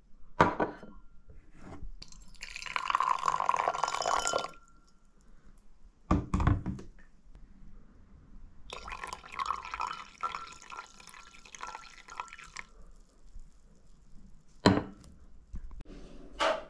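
Liquid poured into a glass cup in two pours, each a few seconds long, with a few short knocks and clinks of glass between them.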